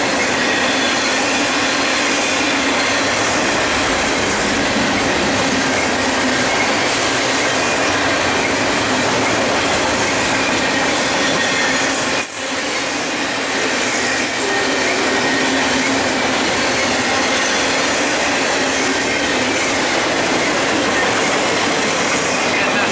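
Double-stack intermodal freight cars of a BNSF train rolling past at speed: a steady, loud rumble and rattle of steel wheels on rail, with thin wheel-squeal tones over it. The sound dips briefly about twelve seconds in.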